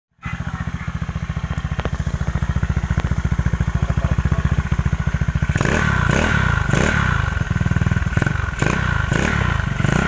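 Yamaha Mio scooter's single-cylinder four-stroke engine, breathing through an aftermarket Replica Pro exhaust, idling with an even pulse. About halfway in it is revved in a series of quick throttle blips, with a high whine over the exhaust note.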